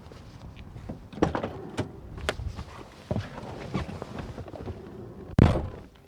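A BMW E36's door being handled, with scattered clicks and knocks, then the door shutting with a heavy thunk about five and a half seconds in.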